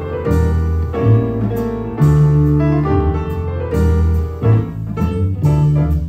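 Piano playing a slow jazz ballad: full chords struck every half second to a second, each ringing on under the melody.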